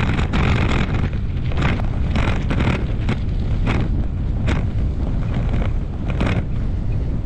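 Gravel-bike tyres rolling and crunching over a loose gravel track, under a steady low rumble of wind buffeting the microphone. The crunches come as irregular short rasps every half second or so.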